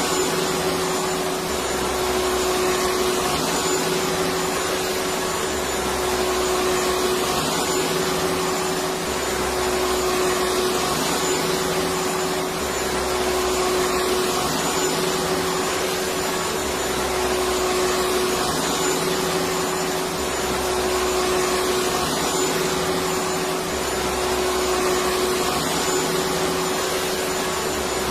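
Electric vacuum cleaner running steadily: a constant whooshing motor noise with a steady whine, under a low hum that swells and drops about every two and a half seconds.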